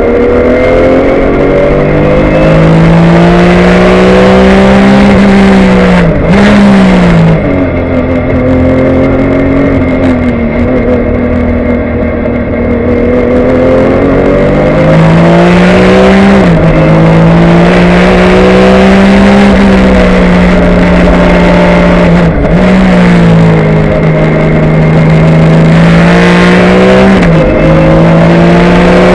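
2003 Porsche 996 GT3 Cup car's flat-six engine at racing speed, heard from inside the cockpit over road noise. Its pitch climbs and then drops sharply at each gear change, about four times.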